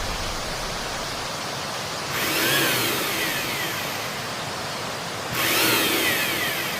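Horror sound effects: a steady hissing noise bed with two high, shrill screeches about three seconds apart, each sliding down in pitch over about a second.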